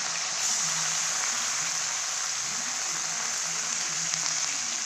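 Onions frying in hot oil in a pan, with a steady, crackling sizzle.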